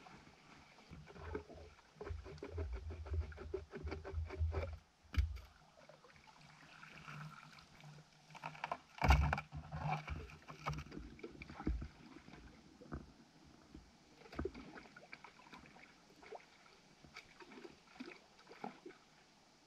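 Water splashing and sloshing in a shallow creek as PVC pipe fittings are rinsed out and dipped, part of emptying the hydrocyclone's concentrate trap into a gold pan. Scattered knocks and handling noises come through, the loudest about nine seconds in.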